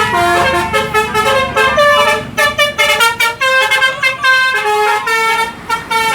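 Bus's multi-tone 'telolet' musical air horn (Basuri type) playing a jingling melody: several horn notes sound together and step to new pitches every fraction of a second.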